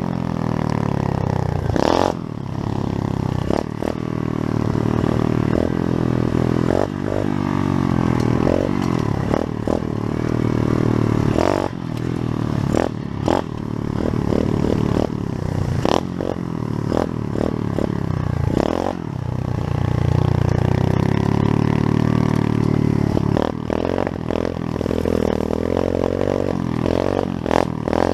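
Small pit bike engine running as it is ridden, its pitch rising and falling as the throttle is opened and closed, with sharp knocks and clatter now and then.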